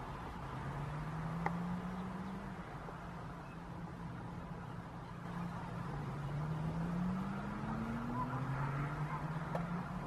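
Motor vehicle engines speeding up several times, each a low hum rising slowly in pitch over about two seconds, over a steady outdoor background hiss.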